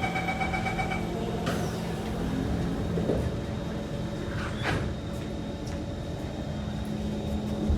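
Inside a Kawasaki C151 metro train: the door-closing warning chime beeps for about the first second, then the sliding doors shut with a clunk. A few knocks follow over the train's steady running noise, and a low steady hum comes in about halfway through.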